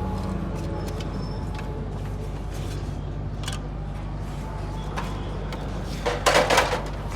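Suzuki Mehran's three-cylinder engine idling steadily, with scattered light ticks. About six seconds in there is a brief, louder noisy burst.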